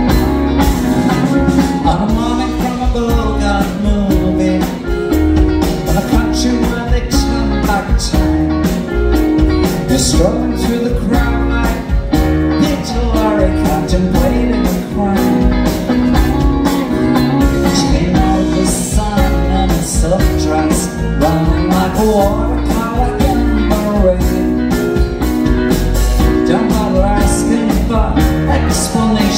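Live band playing a soft-rock song on acoustic guitar, electric guitar, bass, keyboards and drum kit, with a man singing the lead vocal.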